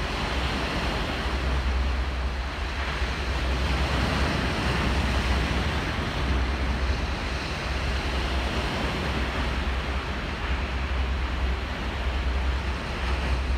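Surf washing and breaking over a boulder shore, a steady rushing, with wind buffeting the microphone as a low rumble.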